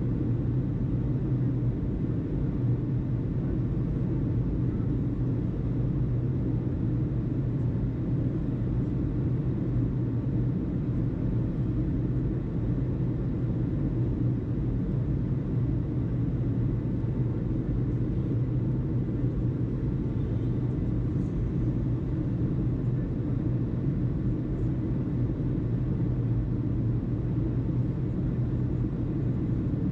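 A steady low rumble that does not change, with no distinct events.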